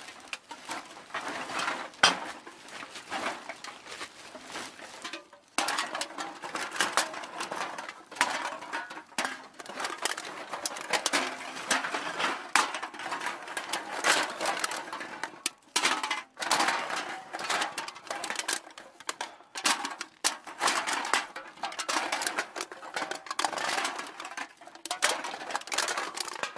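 Empty aluminium cans clattering and knocking against each other in a dense, irregular run of light metallic clinks, with short pauses about five seconds in and again around the middle.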